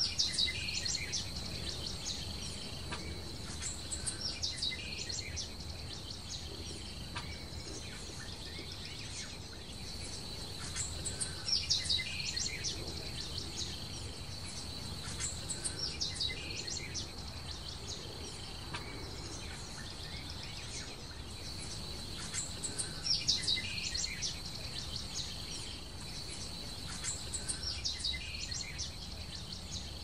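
A steady, high insect drone runs throughout, and a bird sings short clusters of high chirps about every four seconds, over a low background rumble.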